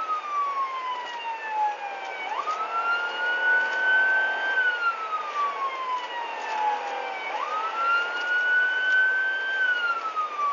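Police car siren on wail: a long sweep up, then a slow fall, repeating about every five seconds. Twice it jumps back up quickly after bottoming out, about two and seven seconds in.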